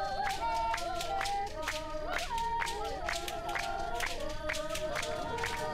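Several voices singing a San trance-dance song in overlapping held, wavering notes, over sharp rhythmic hand-clapping at about four claps a second.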